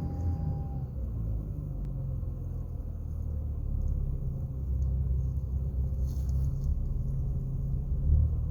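BMW N55 turbocharged straight-six engine running with a steady low rumble. A faint, thin whine sits over it at the start and fades out about a second in. The owner suspected the oil filter as the cause of this whine, which shows when the engine is under load.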